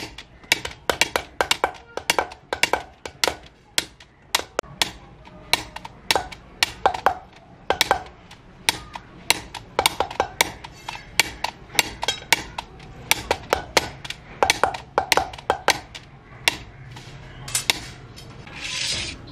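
A hammer tapping the top ends of a tied bundle of thin metal heater-rod tubes: a long, uneven run of sharp ringing metal clinks, about two to three a second, with a brief hiss near the end.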